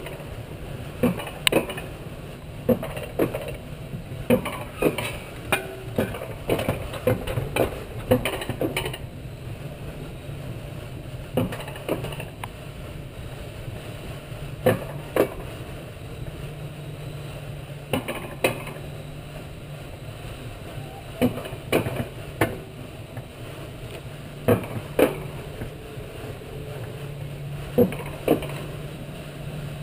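Alpine coaster sled running along its steel rail, with sharp metallic clicks and knocks every second or few seconds over a steady low hum.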